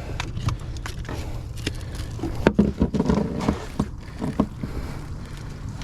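Scattered knocks and clattering thumps on a boat deck as a large blue catfish is grabbed and handled to get the hook out, over a low steady rumble.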